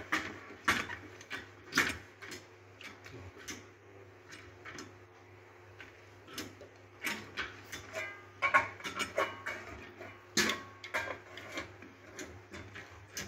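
Rebuilt hand-operated bucket grease pump being worked by its lever, with irregular metallic clicks and clacks from the handle linkage and piston as grease is forced out of the outlet in a test of the repaired pump.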